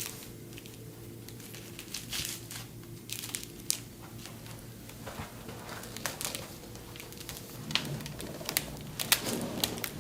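Crinkling and rustling with scattered small clicks, the sound of a patient being handled and positioned on a chiropractic treatment table, over a faint steady hum.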